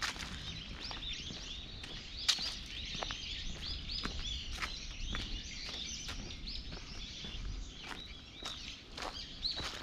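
Many small birds chirping rapidly together, with footsteps on a path of dry fallen leaves at a walking pace; one sharper click about two seconds in.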